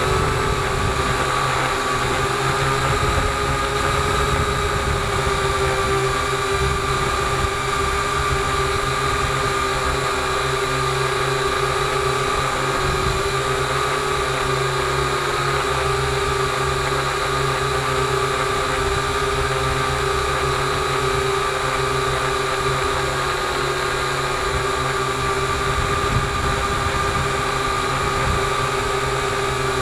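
Small multirotor drone's electric motors and propellers whining steadily while it hovers, the pitch wavering slightly, over a rough low rumble of wind on the microphone.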